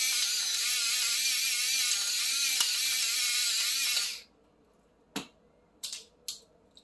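Electric pepper grinder running, its small motor whirring steadily as it grinds black peppercorns, then stopping abruptly about four seconds in. A single knock and a few light clicks follow.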